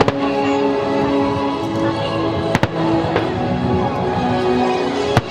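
Fireworks display shells bursting as a few sharp bangs, two of them close together about two and a half seconds in, over music with a held, melodic line.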